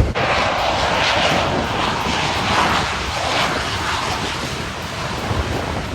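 An airplane flying past, its engine a loud, steady rushing noise that eases off slightly toward the end.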